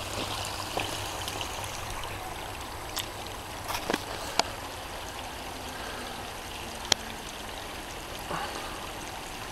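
Spring-fed stream running steadily over stones, with a few sharp clicks of stones knocking underfoot about three, four and seven seconds in.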